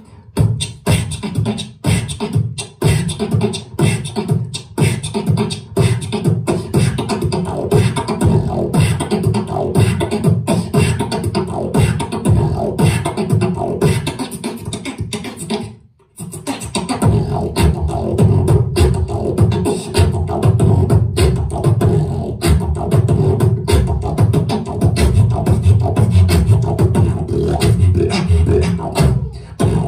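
Solo beatboxing into a handheld microphone: a dense run of vocal kick, snare and hi-hat sounds with strong bass, with a brief stop about halfway through before the beat comes back.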